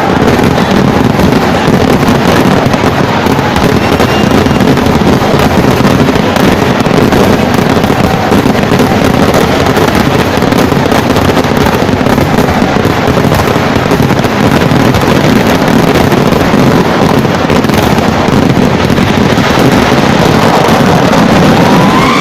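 Vedikettu fireworks barrage: firecracker explosions so dense that they merge into one continuous, very loud noise without a break.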